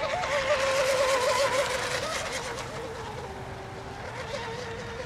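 Radio-controlled racing boats running flat out on the water, their high-pitched engine note warbling up and down in pitch. The sound swells as boats pass close in the first couple of seconds, then eases.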